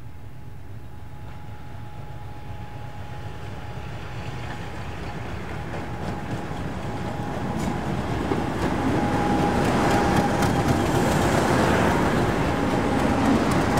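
Diesel locomotive hauling a train and drawing closer. It grows steadily louder over the first nine seconds or so, then stays loud, with a thin steady whine and occasional clicks from about halfway through.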